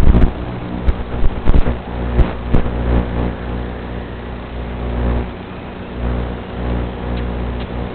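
Blade QX Nano micro quadcopter's motors running with a steady hum, mixed with low wind buffeting on the microphone and a few sharp knocks in the first couple of seconds.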